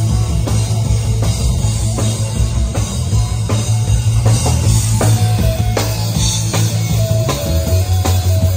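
Rock band music: a drum kit keeps a steady beat under a bass line, with guitar and a held melody on top.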